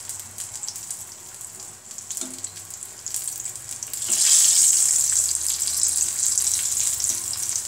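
Sweet potato toffees deep-frying in a small pan of hot oil: a steady sizzle that grows louder about four seconds in as a wire skimmer moves the pieces through the oil.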